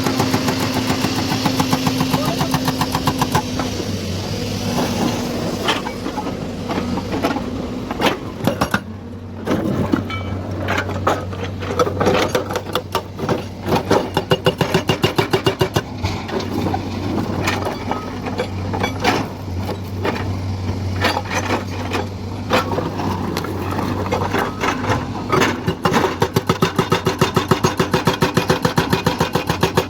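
Hydraulic excavator's diesel engine running under working load, its sound swelling and easing, with scattered sharp knocks through the middle.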